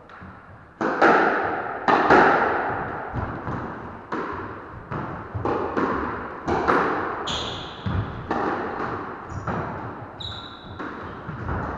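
A squash rally: the ball is struck by rackets and smacks off the court walls, a sharp, echoing crack every half-second to second. A couple of short, high shoe squeaks on the wooden floor come in the second half.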